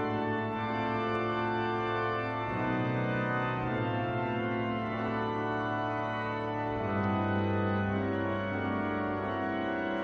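Cathedral organ playing slow sustained chords over a held pedal bass, the harmony shifting a few times, heard through a cell phone's microphone.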